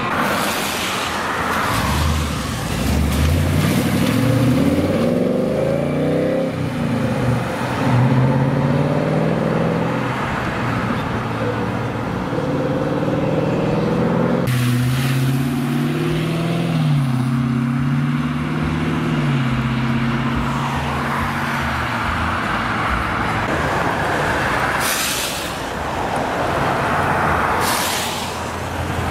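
A series of vehicles accelerating away one after another: a sport motorcycle pulling away with its engine note rising, then, from about halfway, a Ford Mustang accelerating with its exhaust note climbing and dropping through gear changes. Near the end a black Corvette rolls out with a rush of exhaust and tyre noise.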